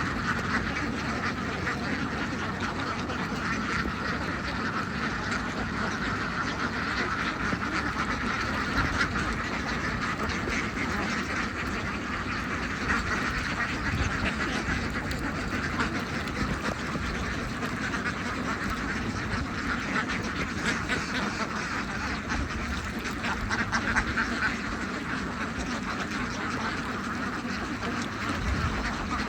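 A large flock of domestic ducks quacking continuously, with many calls overlapping into a steady chorus.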